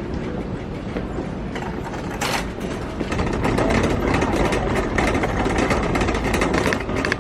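Ride noise of a moving vehicle heard from inside: a steady low rumble with a dense run of rattling clicks that grows louder about three seconds in.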